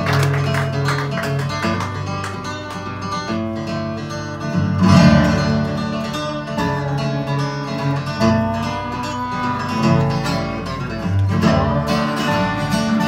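Live bluegrass band playing an instrumental break with no singing: a resonator guitar (dobro), fiddle, acoustic guitar and upright bass, with steady bass notes and sliding melody notes.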